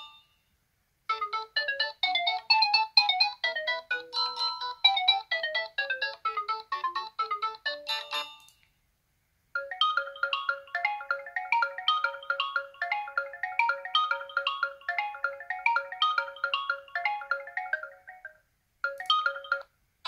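LG Q7 phone ringtones playing in turn. A quick melody of short, bright notes runs for about seven seconds and stops. After a second of silence a different tune of fast repeated notes over a steady low note plays for about nine seconds. A third tone begins just before the end.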